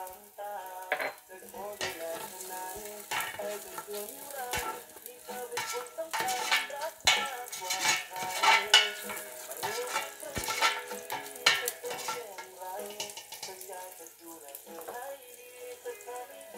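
Chopped garlic sizzling in olive oil in a stainless steel stock pot, stirred with a spatula that scrapes and knocks against the pot, most busily in the middle of the stretch.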